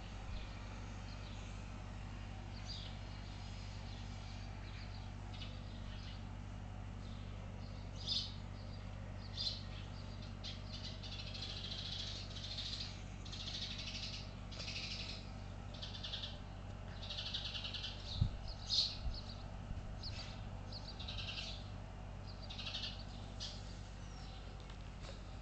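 A mouse squeaking over and over in short high-pitched bursts, most thickly through the middle stretch. A low steady hum runs underneath, and two dull knocks land close together about three-quarters of the way through.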